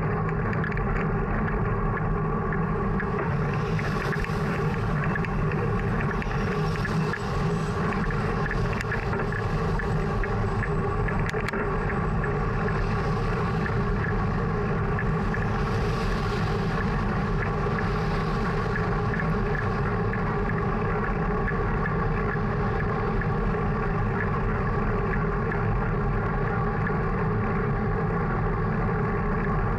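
Steady rumble of wind and road vibration on a bicycle-mounted action camera as the bike rolls along an asphalt road. Over it, several cars pass in the first two-thirds, each a brief rising and fading hiss.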